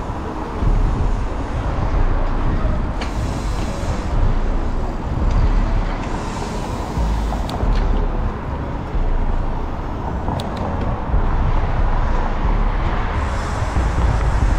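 Wind buffeting the microphone of a handlebar camera on a moving bicycle, over a steady wash of street traffic noise, with a few sharp clicks and brief hissing surges.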